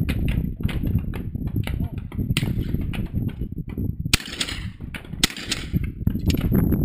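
Shotgun fired at clay targets: two sharp reports about a second apart, a little past the middle, with an earlier crack before them. Wind buffets the microphone throughout.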